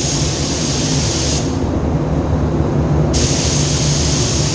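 Paint spray gun hissing as it sprays waterborne basecoat at about 22 PSI. The hiss cuts off about one and a half seconds in and starts again about three seconds in, as the trigger is released and pulled again. A steady low hum runs underneath.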